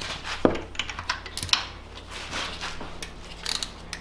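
Pliers and hand tools working the spark plug connectors in an engine bay: irregular light clicks and clacks of metal and plastic, the loudest about half a second in and again about a second and a half in, over a faint steady hum.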